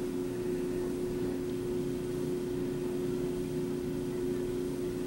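A steady low hum with a constant tone, unchanging throughout.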